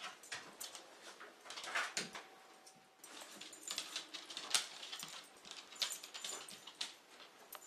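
Two Airedale terriers scrabbling about a tile kitchen floor after thrown dog treats: a scatter of light claw clicks and scuffs, with sniffing as they nose for the treats.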